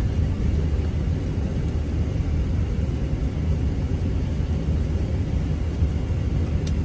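Steady low rumble inside the cabin of a Boeing 777-300ER taxiing on the ground.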